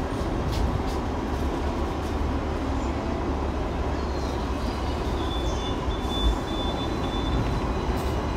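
Hong Kong double-decker tram running along its tracks: a steady low rumble of wheels on rail, with a few light clicks. A thin, high wheel squeal comes in past the middle and lasts about two seconds.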